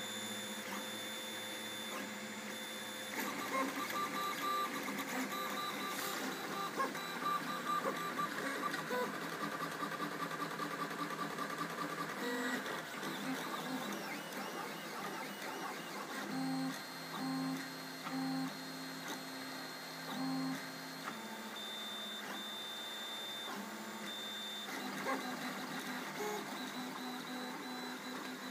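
MendelMax RepRap 3D printer printing: its stepper motors whine in tones that change pitch with each move of the print head and bed. Past the middle there is a run of short, evenly repeated low buzzes.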